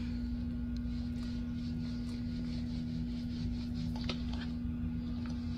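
A steady low hum, one unchanging tone held throughout, over faint background noise with a few soft ticks.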